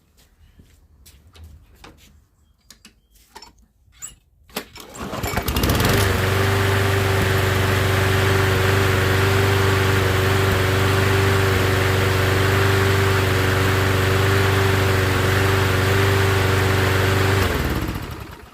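Toro Recycler walk-behind lawnmower's single-cylinder four-stroke engine starts about five seconds in after a few faint clicks, runs at a steady speed, and cuts off near the end. It runs evenly now that its carburettor has been cleaned and the water-contaminated fuel replaced with fresh fuel.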